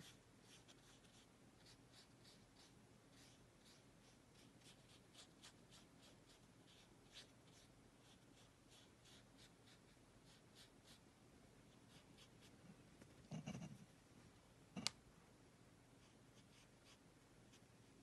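Faint, quiet ticking and scratching of a watercolour paintbrush dabbing and stroking on paper. About two-thirds of the way through there is a soft knock, then a sharp click.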